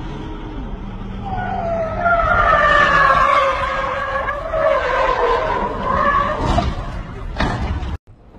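An SUV's tyres squeal loudly and waver in pitch as it skids and slides on pavement, with its engine running underneath. Two sharp cracks come near the end. Then the sound cuts off suddenly to a quieter steady road hum.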